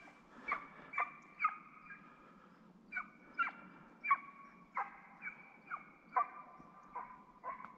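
Hunting hound baying while driving a roe deer: a run of high yelping barks, irregular at one to two a second, each dropping briefly in pitch.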